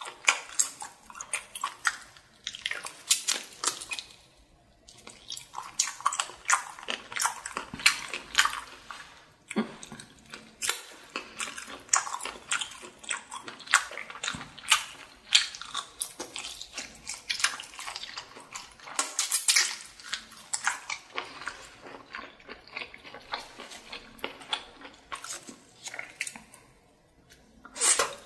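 Close-miked chewing of a sauce-coated giant octopus tentacle: a dense run of irregular soft clicks and smacks. There are short pauses about four seconds in and near the end.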